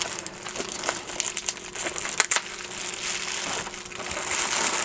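Pink plastic bubble wrap crinkling and crackling as it is pulled open and unwrapped by hand, with many small sharp crackles; it grows louder and busier near the end.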